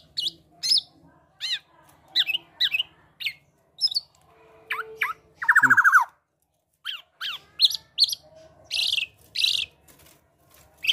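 Black-naped oriole (kepodang emas) singing a rapid series of short, sharp whistled notes. About halfway through comes a loud, fast rattling run, then a pause of about a second before the notes resume.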